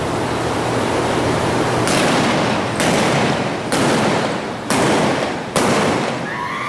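Five gunshots about a second apart, starting about two seconds in: a mounted shooter's single-action revolver firing black-powder blanks at balloon targets, each shot trailing off briefly, over steady background noise.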